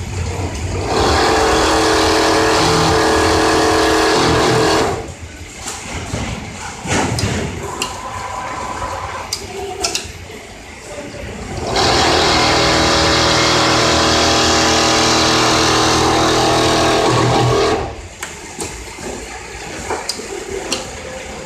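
Industrial automatic template sewing machine running in two spells of several seconds each, a steady, even machine sound that starts and stops abruptly. Quieter stretches with scattered clicks and clatter lie between the spells.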